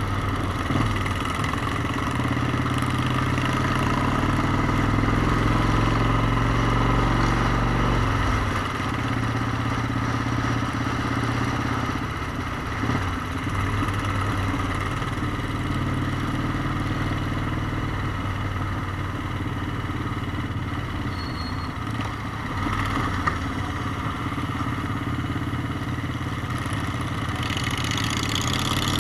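Motorcycle engine running steadily under way. Its note drops about eight seconds in and holds lower for the rest of the stretch.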